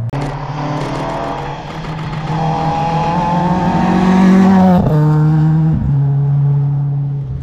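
Rally car engine accelerating hard, its note climbing steadily for about three seconds, then dropping suddenly about two-thirds of the way in before carrying on at a steadier pitch.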